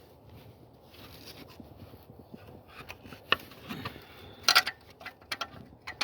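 Hand tools and parts being handled during car repair work: low scraping and rubbing, then a few sharp clicks and clanks, the loudest cluster about halfway through.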